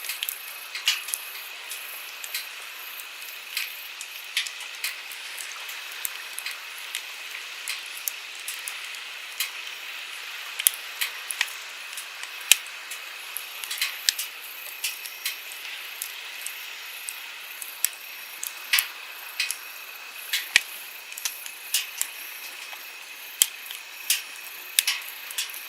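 Wood campfire crackling, with irregular sharp pops a few times a second, over the steady rush of a flowing stream.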